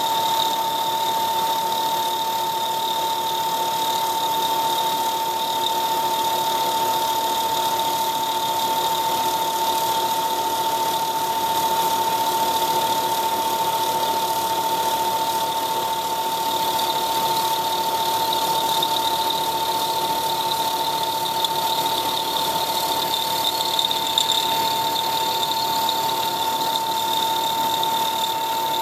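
CNC milling machine spindle running with a steady high whine while a small end mill thread-mills a four-start worm into a metal blank, over an even hiss of coolant spray. Two brief ticks come about three-quarters of the way through.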